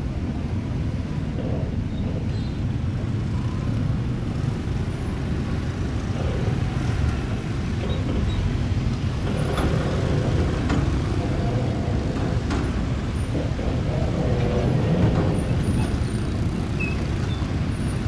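Steady low rumble of motor vehicle engines and traffic, with a few faint clicks and short squeaks over it in the middle.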